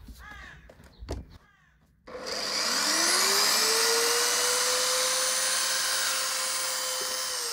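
Portable band saw starting about two seconds in, its motor whine rising to speed, then running steadily as the blade cuts through grey PVC drainage pipe. The motor begins to wind down near the end.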